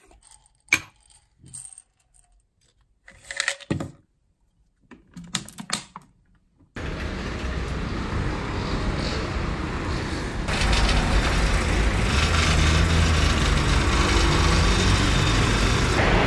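Short bursts of clicking and rattling from a vitamin bottle being handled and its tablets shaken. About seven seconds in, this gives way abruptly to the steady hum of city street traffic, which grows louder a few seconds later.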